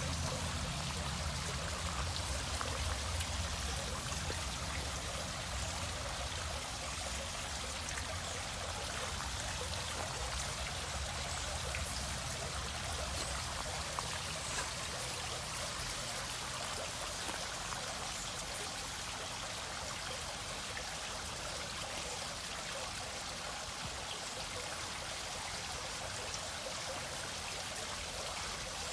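Steady hiss and splash of running water, with a low hum underneath that fades out about halfway through.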